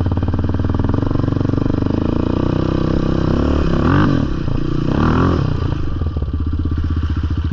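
Yamaha sport ATV engine running as it rides a dirt trail, with two quick rev-ups and drops about four and five seconds in.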